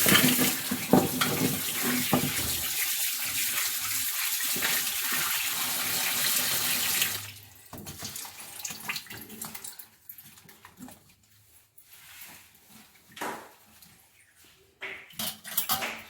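Tap water running into a sink as muddy colocasia (taro) roots are washed by hand. The tap shuts off about seven seconds in, leaving quieter splashes and knocks of the roots being handled.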